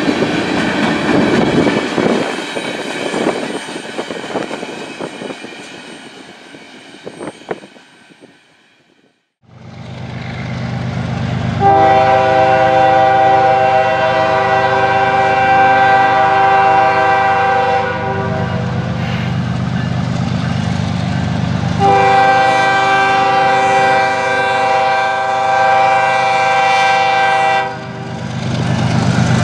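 Freight train's covered hopper cars rolling past with wheels clacking, the sound fading away over several seconds. Then a Kansas City Southern diesel locomotive approaches with its engine rumbling and sounds its horn in two long blasts, a third starting at the end, as it signals for a grade crossing.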